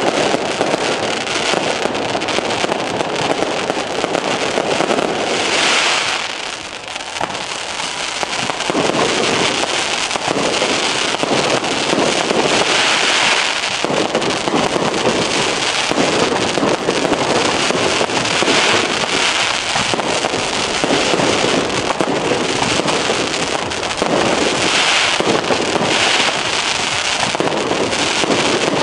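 Fireworks display going off: a dense, continuous crackle of many small bangs and pops, easing briefly about six seconds in before building again.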